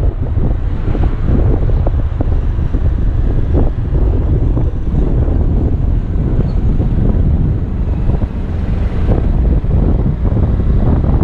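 Steady wind rush on the microphone while riding a Kymco Xciting 250i maxi-scooter, with the scooter's single-cylinder engine running underneath.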